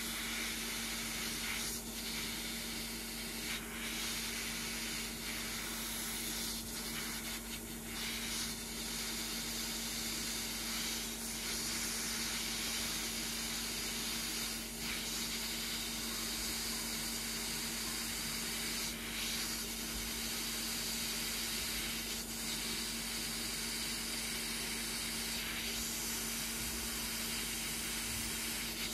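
Heat gun blowing hot air, a steady hiss of air with a constant motor hum, while it shrinks heat-shrink tubing.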